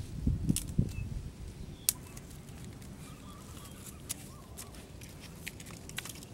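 Dry sticks being handled and laid on a pile, giving scattered sharp clicks and knocks, with a few low thumps in the first second. Faint bird chirps sound now and then.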